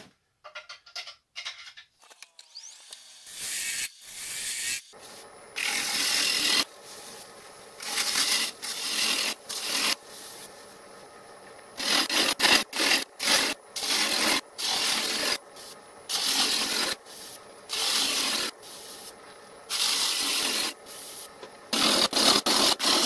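Bowl gouge cutting green fruitwood on a spinning lathe: a run of separate scraping cuts, each about a second long with short pauses between, starting about three seconds in after a few faint clicks and coming quicker near the end.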